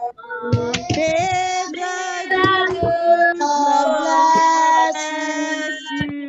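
Children and women singing a birthday song together over a Zoom video call, several voices at once.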